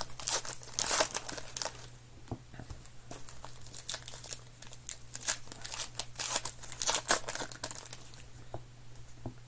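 Wrappers of 2020 Topps Heritage baseball card packs being torn open and crinkled by hand: irregular crackling rustles, with a faint steady low hum underneath.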